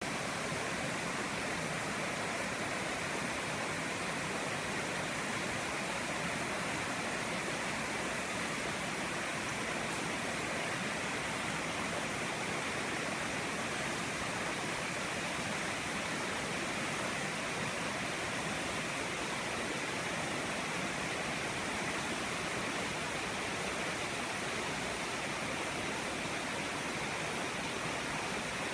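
Small rocky rainforest stream rushing and splashing over boulders: a steady, unbroken hiss of running water.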